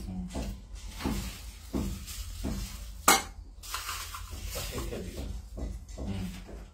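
Plastic cupping cups and a pistol-grip hand vacuum pump being handled, making a run of light clicks and clatters, with one sharp, loud click about three seconds in.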